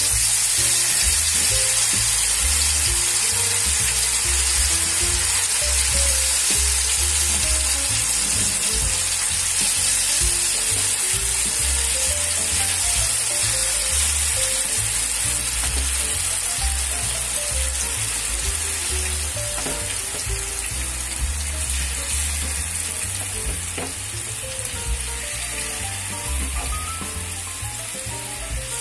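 Marinated tuna pieces deep-frying in hot coconut oil: a loud, steady sizzle that eases off gradually as the oil settles around the fish.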